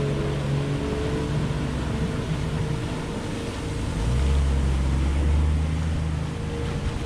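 A four-wheel-drive vehicle's engine running steadily; about four seconds in a louder, deeper low note comes in.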